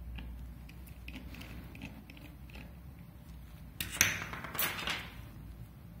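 Faint small metallic clicks of a precision screwdriver bit working against a hard drive's tiny screw, then a sharp metal clink and a brief rattle about four seconds in as the metal screwdriver is handled and set down on the table.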